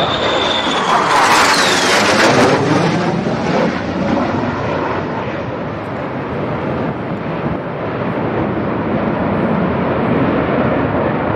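F/A-18 jet's twin engines as it flies low overhead: a loud roar that peaks about two seconds in, with a whine falling in pitch as the jet passes. A steady rumbling roar goes on after it has passed.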